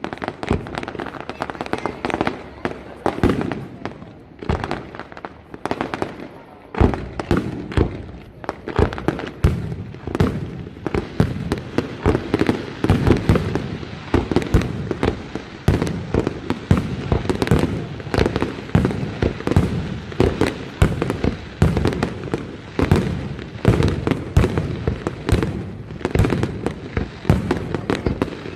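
Fireworks display: aerial shells bursting in a dense, continuous barrage of bangs, several a second.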